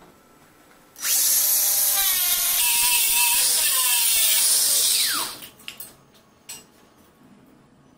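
Cordless angle grinder with a cutting disc slicing through the steel collar of an empty gas cylinder for about four seconds, then winding down with a falling whine. A few light knocks follow.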